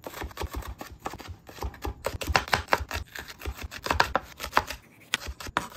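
Chef's knife slicing sweet peppers on a bamboo cutting board: quick, irregular taps of the blade on the wood, several a second, with a brief pause near the end.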